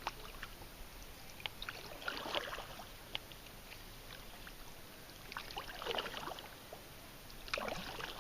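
Kayak paddle dipping and pulling through river water: three swishing splash strokes a few seconds apart, with a few small clicks and drips between them.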